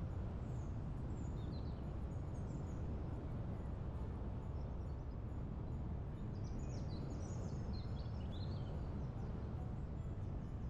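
Steady low rumble of wind noise, with small birds chirping in short quick phrases, a few near the start and a busier run in the second half.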